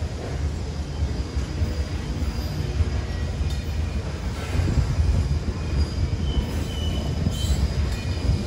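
Freight train's covered hopper cars rolling past, a steady low rumble of steel wheels on the rails, with a few brief faint high-pitched wheel squeals.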